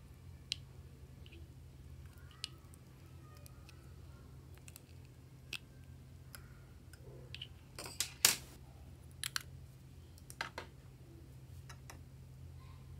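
Small nail scissors snipping and scraping lipstick over a glass bowl, making scattered light clicks and taps of metal and lipstick tubes being handled. The loudest cluster of clicks comes about eight seconds in, over a faint steady low hum.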